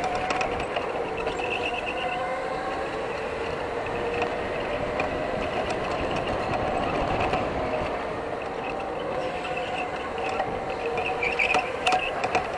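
Onboard sound of an electric go-kart at racing speed: a motor whine that rises and falls in pitch as the kart speeds up and slows through the corners, over a steady rumbling noise, with a few sharp rattling knocks near the end.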